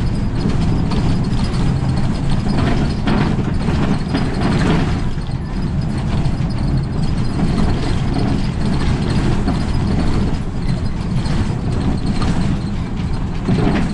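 Route bus driving along a road, heard from inside at the front: a steady low engine and road rumble.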